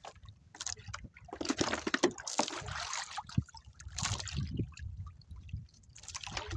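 Water sloshing and splashing around a small wooden outrigger boat in irregular surges, loudest about one and a half to three seconds in, over a low steady rumble.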